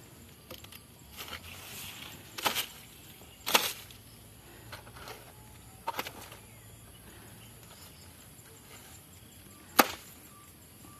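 Sharp woody knocks or snaps, about four loud ones spread out, the loudest near the end, with smaller clicks between them.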